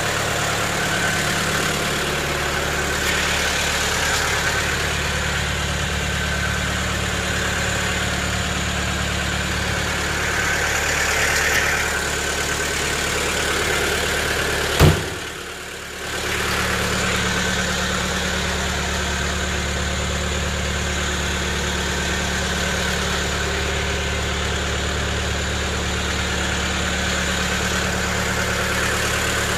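Mercedes-Benz 220 D's four-cylinder diesel engine idling steadily, with one sharp knock about halfway through.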